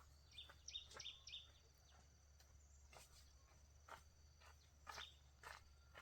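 Near silence: faint rural outdoor ambience, with a few faint short chirps about a second in and scattered soft ticks.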